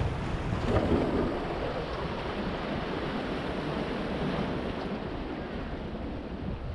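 Sea waves washing and splashing against the large stones of a rock breakwater, a steady rush that swells about a second in.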